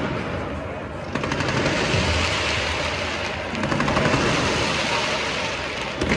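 Stadium pyrotechnics firing: a dense, rapid crackle of spark fountains and shells that starts about a second in and runs on like machine-gun fire.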